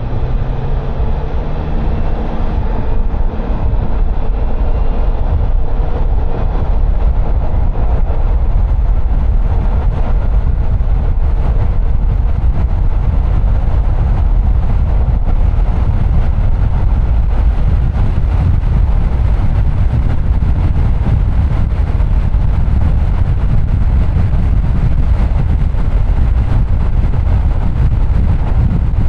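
Car driving along a road: steady low road and engine rumble.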